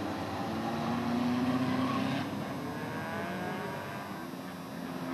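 Engines of skid-plate race cars revving up and down, loudest a second or two in, over a steady grinding noise from steel skid plates dragging and sparking on the asphalt.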